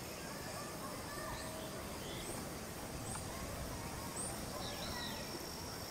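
Wind rushing over the microphone, with faint high bird chirps repeating about once a second.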